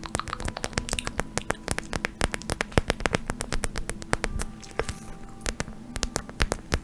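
ASMR tapping and scratching on a pad: rapid, irregular sharp clicks, several a second, close to the microphone, over a faint steady hum.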